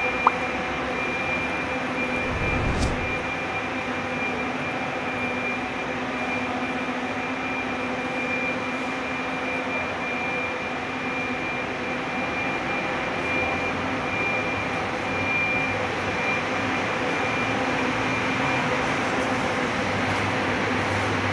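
Coach bus engine running steadily: a constant mechanical drone with a steady high whine that stops near the end. A brief low thump comes about three seconds in.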